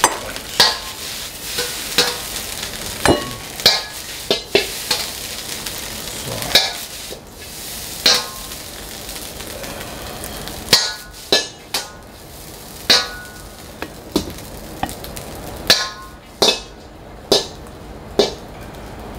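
Round metal ladle knocking and scraping against a wok as fried rice is scooped out, sharp metallic clanks with a brief ring about once a second at an irregular pace, over a steady sizzle of frying.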